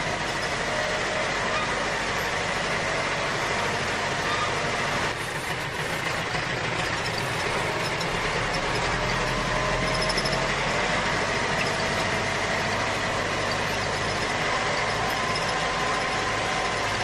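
Steady vehicle engine noise, running evenly without a break.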